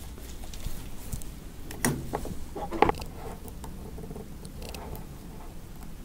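Light scattered taps and rustles of small parts and tools being handled on a tabletop, with a couple of sharper clicks about two and three seconds in.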